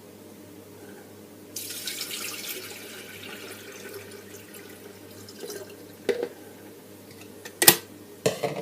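Water running from a tap for about two seconds, starting suddenly and tailing off. Then a few sharp knocks, the loudest about a second before the end.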